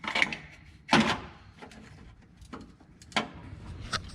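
A few short plastic clicks and knocks as an electrical wiring connector on the side of a six-speed manual transmission is worked loose by hand.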